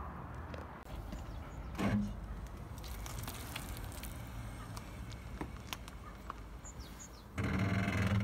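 Car engine running with a low steady hum, with faint crackles as the tyre rolls over a jam-filled pastry. Near the end the engine gets louder for about a second as the car moves off.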